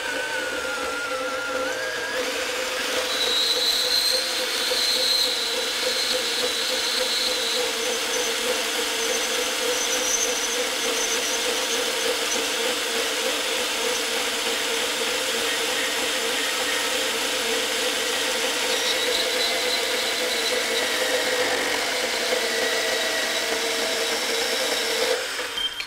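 Ridgid R8604B 18-volt cordless compact band saw, with a brushed motor, running steadily as its blade cuts down through thick metal stock. A thin high whine of the blade comes and goes over the steady motor and cutting noise, and the saw stops near the end.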